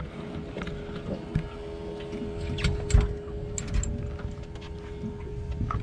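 Knocks, clicks and scuffs of a large flathead and a plastic measuring mat being handled on a boat's carpeted deck, with one louder thump about three seconds in, over a steady hum.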